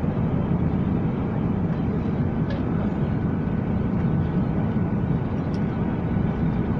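Steady roar of a passenger airliner's engines and rushing air, heard inside the cabin on the approach to landing. A faint thin whine joins about two and a half seconds in, with a couple of faint clicks.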